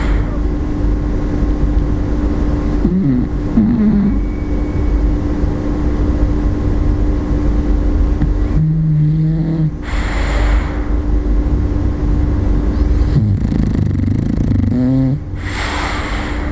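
Bulldog snoring in deep sleep: a continuous low rumble, with wavering pitched snorts on some breaths and, twice, a hissing rush of air through the nose and mouth.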